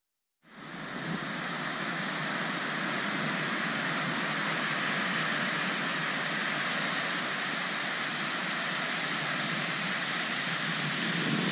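Steady wash of ocean surf breaking on a sandy beach, fading in after a brief silence at the start.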